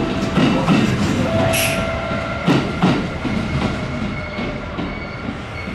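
Electric commuter train moving along the station tracks, its wheels knocking over the rail joints, with a brief high wheel squeal about a second and a half in. The train grows gradually fainter.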